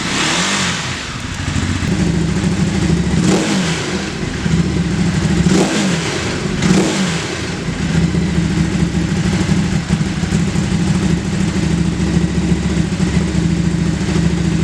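Ducati Hypermotard 939 SP's L-twin engine, running through an aftermarket exhaust, blipped several times over the first seven seconds or so. It then settles into a steady idle.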